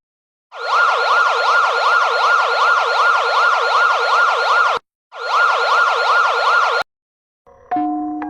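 Electronic siren alert tone warbling rapidly up and down, about three or four sweeps a second, over a hiss. It cuts out briefly just before five seconds in, comes back, and stops about seven seconds in. A few chime-like notes start near the end.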